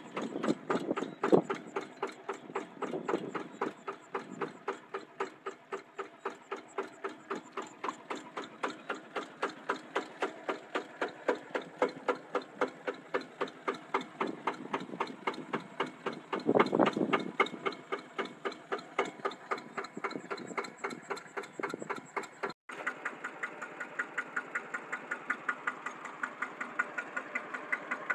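Yanmar TF150 single-cylinder horizontal diesel running steadily, belt-driving a water pump, with a regular knocking beat. After a sudden break about 22 seconds in, a Kubota RT120 single-cylinder diesel runs in its place with a steadier, more even beat, also driving a pump.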